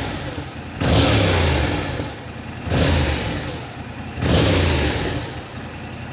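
2022 Yamaha R7's 689 cc parallel-twin engine, warm and idling, blipped three times. Each blip rises quickly and falls back to idle, about a second in, near three seconds and near four and a half seconds. The engine has just had fresh 10W-40 oil put in.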